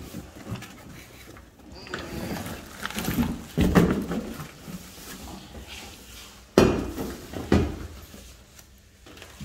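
Cardboard box and foam packing rustling and knocking as an air compressor is pulled out of its box and set down on the floor, with several thumps, the loudest a little past halfway.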